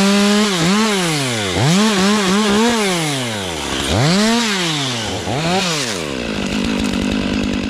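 Stihl 500i two-stroke chainsaw revving up and falling back several times under the throttle, then settling to a lower, steady run about six seconds in.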